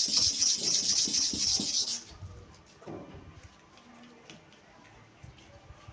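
WMARK hair-clipper blade being rubbed by hand across a wet, hard sharpening stone, a steady scraping hiss that stops about two seconds in. After that only faint clicks and taps of the blade and stone being handled.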